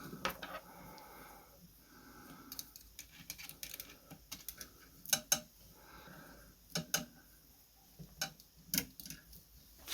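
Irregular light metallic clicks and taps of small steel parts and a screwdriver being worked on a 1919 Molle No. 3 typewriter while its paper guard is fitted, with a few sharper clicks about five, seven and nine seconds in.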